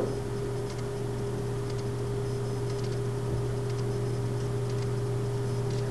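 Steady low hum, two even tones held throughout, with a few faint ticks: background room tone with no speech.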